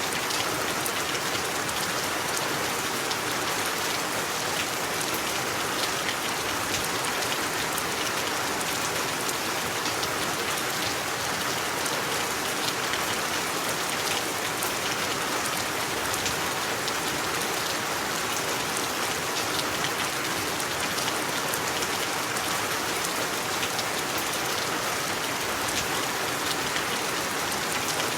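Steady rain falling, a dense even hiss with many fine drops ticking.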